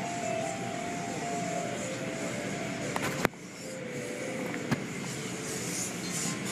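Automatic car wash running, heard from inside the car: a steady rushing of water spray and machinery as the cloth-strip curtain passes over. Two sharp clicks cut through, about three seconds in and again near five seconds.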